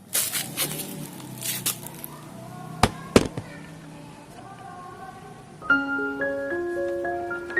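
Several short hissing bursts over a low hum, then two sharp clicks about three seconds in. Background music with a glockenspiel-like mallet melody starts about three-quarters of the way through.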